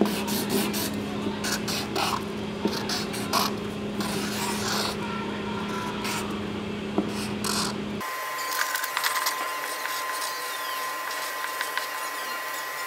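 Marker pen scratching across paper in short strokes over a low steady hum. About eight seconds in, the hum cuts off abruptly and a thin steady high tone takes its place, with scratching still faintly there.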